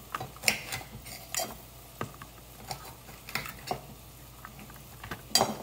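A bowl being handled and shifted about: irregular light knocks, taps and scrapes, with a sharper clink about five seconds in.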